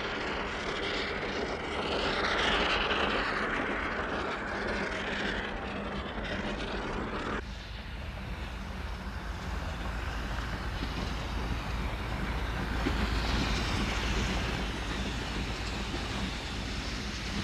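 Metre-gauge Mallet steam tank locomotive working a passenger train uphill: a steady rushing rumble of exhaust and running gear with no distinct beats. About seven seconds in the sound changes abruptly to a deeper rumble as the locomotive draws nearer.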